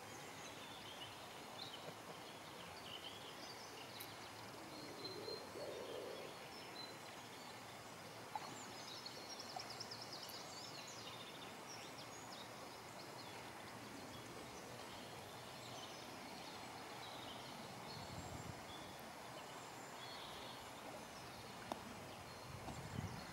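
Faint outdoor ambience with small birds chirping now and then, including a quick run of rapid high notes about nine seconds in.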